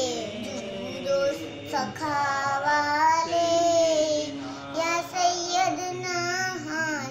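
A young girl's solo voice singing a manqabat, an Urdu devotional praise poem, in a slow chant with long held, wavering notes.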